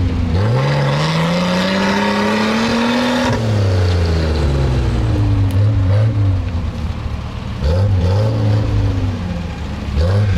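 Off-road vehicle's engine revved hard, its pitch climbing for about three seconds and then dropping back, followed by several shorter blips of the throttle.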